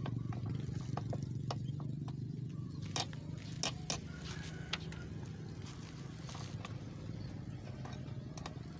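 A steady low motor hum, with a few sharp clicks about three to five seconds in.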